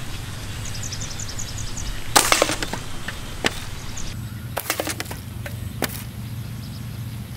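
A homemade wooden slingshot being shot: a sharp snap of the released bands about two seconds in, followed by several fainter clicks and knocks. A steady low rumble runs underneath.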